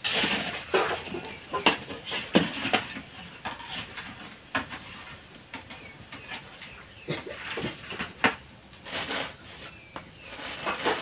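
Krupuk crackers frying in hot oil in a wok, with a metal spatula scraping and knocking against the wok at irregular moments. Animal calls sound now and then in the background.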